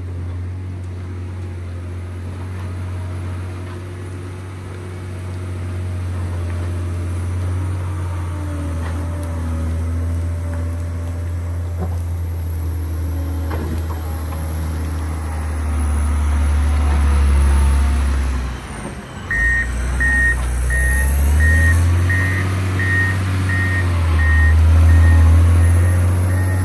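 John Deere 670GP motor grader's diesel engine running steadily under load, dipping briefly a little after 18 seconds in. Then its reversing alarm starts beeping, about one and a half beeps a second, as the grader backs up.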